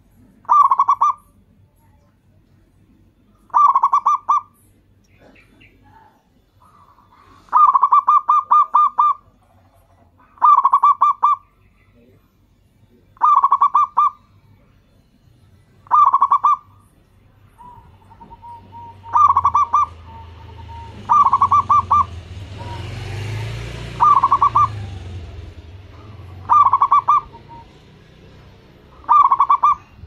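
Zebra dove (perkutut) singing: about eleven short phrases of quick staccato cooing notes, one every two to three seconds, one phrase near the start longer than the rest. In the middle a broad low rumbling noise swells up and fades away beneath the song.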